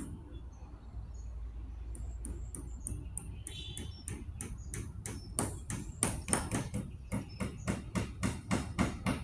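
Rhythmic knocking at about three strikes a second, faint and sharp at first, then much louder from about halfway through.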